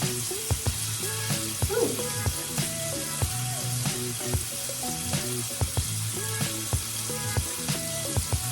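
Food sizzling in a frying pan, with a utensil clicking against the pan now and then, over quiet background music.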